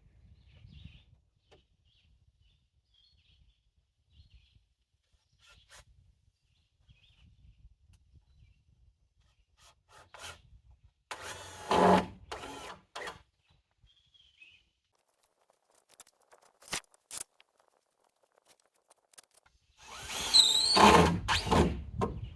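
Cordless power drill driving screws into wooden rafters: two short runs of a second or two each, one a little before the middle and one near the end, with a couple of sharp clicks between them. Faint bird chirps come and go in the quiet stretches.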